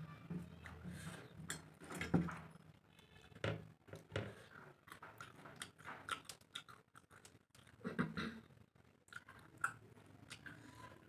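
A person chewing a mouthful of rice and prawn curry eaten by hand: wet mouth smacks and clicks at irregular intervals.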